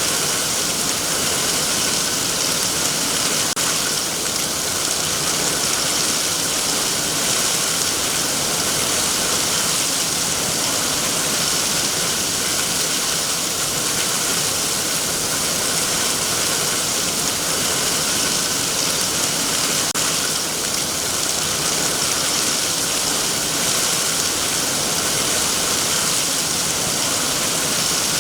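Heavy rain falling on trees and foliage, a steady dense hiss of drops with no breaks.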